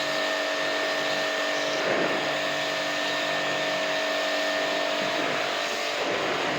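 Electric jet pump (portable pressure washer) running steadily with a hissing spray, as used to wash a window air conditioner's coils during servicing.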